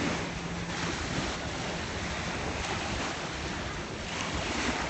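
Small sea waves washing onto the shore, with wind buffeting the microphone. A faint steady low hum comes and goes underneath.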